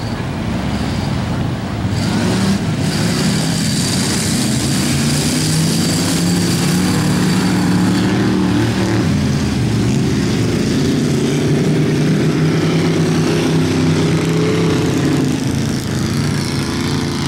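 Several rear-wheel-drive race cars' engines running and revving together on an ice track. Their pitches overlap and rise and fall as the drivers work the throttle through the corners.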